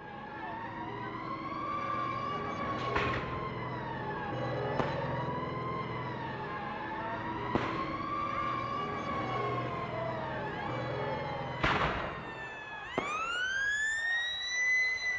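A wailing siren, its pitch slowly rising and falling every few seconds, with four sharp cracks along the way. Near the end a second siren winds up, sweeping steeply upward in pitch, over a low hum.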